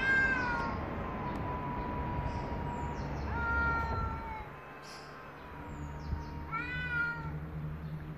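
Cats yowling at each other in a face-off: long drawn-out wails, each rising and then holding a steady pitch, three times.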